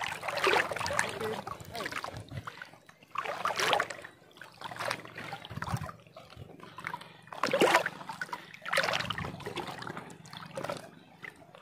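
Shallow seawater sloshing and splashing in irregular bursts about a second apart, from someone wading across a reef flat.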